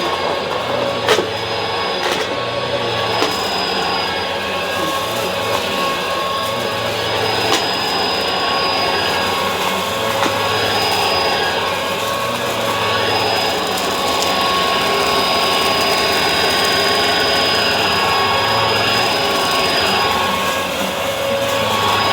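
Bissell vacuum cleaner running steadily, a motor hum with a steady high whine, broken by a few sharp clicks in the first several seconds.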